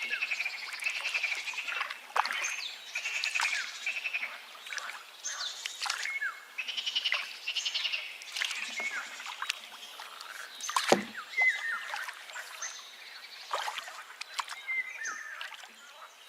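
Wild birds chirping and trilling in many overlapping calls, some rapid pulsed trills and quick falling whistles, over a faint steady rush of a river. A single sharp knock sounds about eleven seconds in, louder than the calls.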